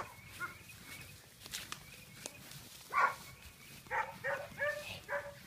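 Puppy giving short high yips: one about three seconds in, then a quick run of five more near the end.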